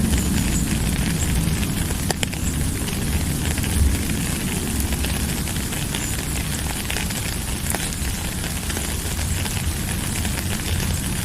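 Steady rain falling, a constant hiss with scattered drips and ticks and a deep low rumble underneath.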